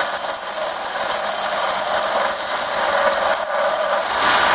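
Palmgren belt and disc sander grinding a steel file held against its belt, knocking down the file's teeth: a steady, high hiss of abrasive on steel that stops near the end as the file is lifted off.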